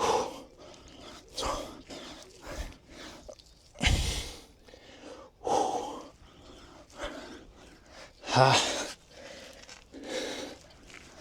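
A man breathing hard through a set of push-ups, with a sharp forceful exhale about every second and a half, one per repetition, sometimes voiced as a short grunt. He is tiring late in the set and out of breath.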